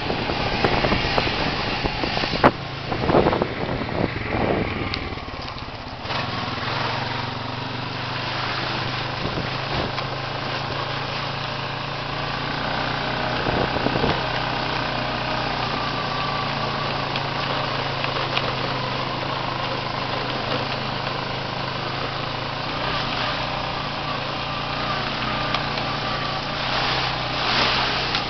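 ATV engine running steadily under way on a dirt trail, heard from the rider's seat. A few louder knocks and rattles come about two to five seconds in.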